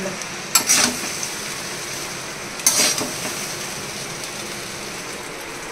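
A metal spatula scraping and knocking against a steel kadai as cooked rice is stirred for jeera rice, two short clatters about two seconds apart, over a faint sizzle.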